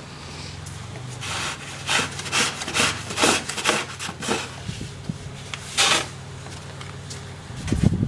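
Inside a car driving in heavy snow: a steady low engine hum under a run of short, rasping scrapes, several close together and then one more near the end.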